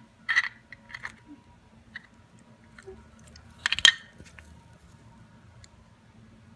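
Small hard plastic toy pieces clicking and tapping as they are handled and fitted together: a few light clicks early, and a louder cluster of clicks about four seconds in.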